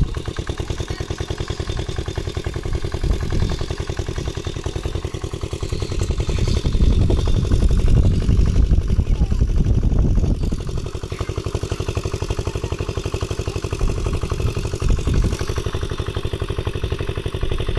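A small engine running steadily with a fast, even chugging; its note shifts about eleven seconds in.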